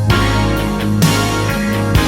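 Instrumental passage of a 1980s pop ballad: held chords with a drum hit about once a second.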